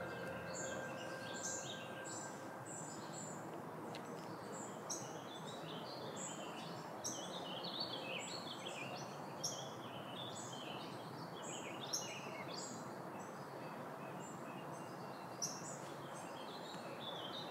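A chorus of songbirds chirping, many short calls overlapping throughout, over a steady hiss of outdoor background noise.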